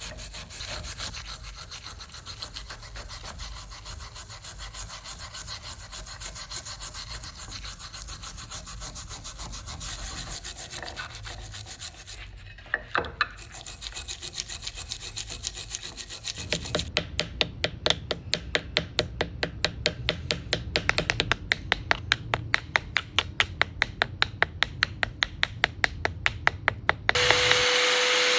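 Rhythmic back-and-forth rasping strokes of a hand tool working a piece, about three a second at first, briefly pausing near the middle, then quicker at about four to five a second. Just before the end a power tool's motor starts with a steady hum.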